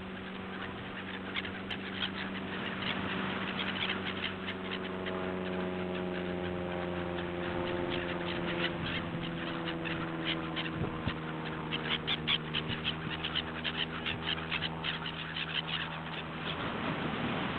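A flock of gulls calling: many short, overlapping calls that grow busier in the second half. Under them runs a steady low hum whose tones slowly drift in pitch.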